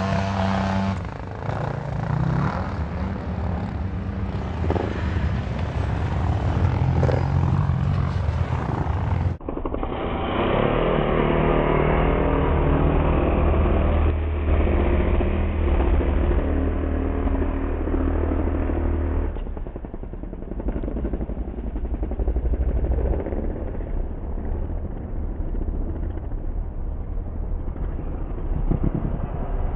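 Dirt bike engines running and revving on a motocross track, in several spliced clips; the sound changes abruptly about nine seconds in and again about nineteen seconds in.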